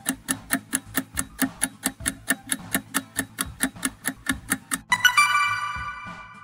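Quiz countdown-timer sound effect ticking evenly, about four ticks a second, over a low music bed. About five seconds in, a bright chime rings out and fades, marking the reveal of the correct answer.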